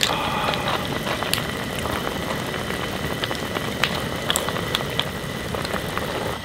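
A pot of fish soup with mussels and clams bubbling at a simmer, with many small pops and clicks over a steady hiss.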